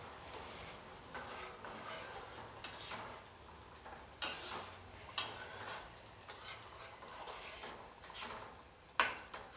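Spatula stirring potato-and-tomato gravy in a kadhai, scraping the pan with scattered knocks against its side; the sharpest knock comes near the end.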